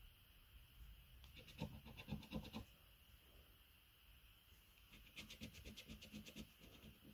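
A coin scratching the scratch-off coating from a scratchcard in two bursts of quick strokes, one about a second in and one near the end, uncovering squares on the word grid.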